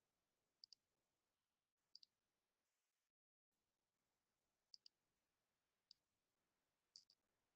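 Near silence broken by about five faint clicks, each a quick double tick, spread over the seconds, like computer mouse button presses. There is a brief dead gap in the sound about three seconds in.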